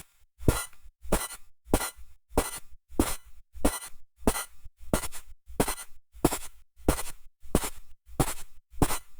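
Footsteps crunching in snow at a steady walking pace, about three steps every two seconds.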